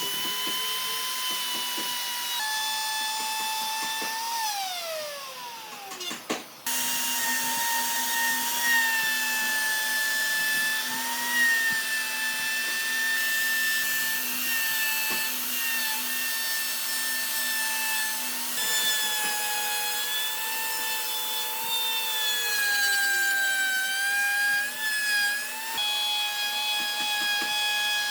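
A high-speed electric power tool running with a steady high whine as it cuts into wood, the pitch dipping slightly under load. A few seconds in it winds down with a falling whine, then the sound resumes.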